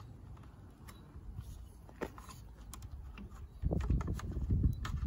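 Small plastic clicks and taps as a side repeater lens is handled and pushed into a plastic wing mirror casing. An irregular low rumble joins about two-thirds of the way in.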